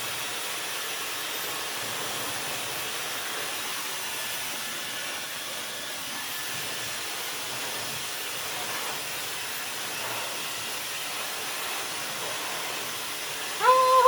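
Dyson hair dryer blowing steadily, a constant rush of air, running on a higher heat setting.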